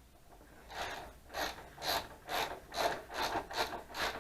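Ratchet wrench clicking through about nine quick back-and-forth rasping strokes, starting under a second in, as it backs out a motorcycle fuel-tank mounting bolt.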